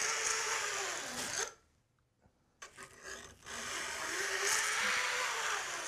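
Flat file drawn along the tops of a 6-tooth-per-inch crosscut handsaw's teeth, topping the saw to bring the teeth level before sharpening. Two long scraping strokes, the first stopping about a second and a half in and the second starting a little past the middle, with a short lighter scrape between them.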